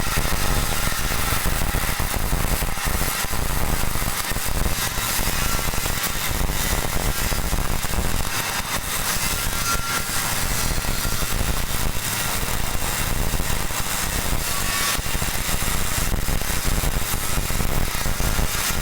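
CO2-shielded MIG welding arc crackling and sizzling steadily as the bead is laid.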